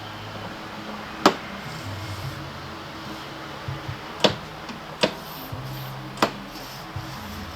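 Background music with low held notes, cut through by four sharp clicks, the loudest about a second in.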